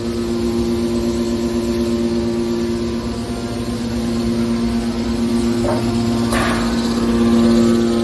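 Hydraulic baler for aluminium cans, its pump motor running with a steady hum. A short, sharper noise breaks in about six seconds in.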